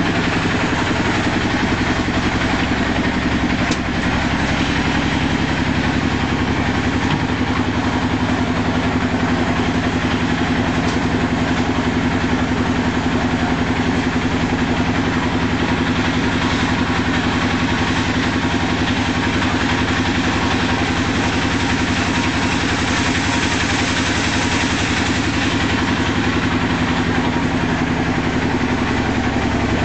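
An engine running steadily at one constant speed, a low even hum that never changes, with no revving.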